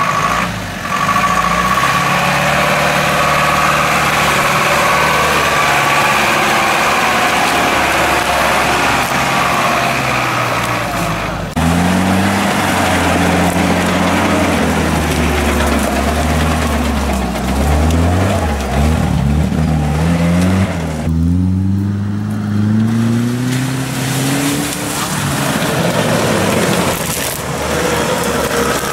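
Off-road vehicle engines working on a muddy forest track: a GAZ-66 army truck's engine running steadily, then a UAZ-469's engine revving up and down again and again.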